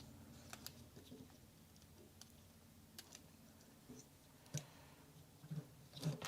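Light clicks and taps of small plastic parts being handled, scattered and irregular, with a slightly louder knock about four and a half seconds in and another near the end.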